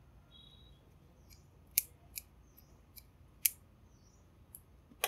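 Metal kitchen scissors snipping through fried chillies on a plate: several sharp, spaced snips, two of them louder than the rest.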